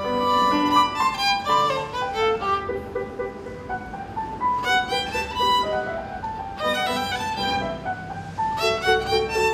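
Classical music with a violin carrying the melody over a lower string accompaniment, the notes moving from one to the next every fraction of a second. The narration presents it as played by students of a community music school.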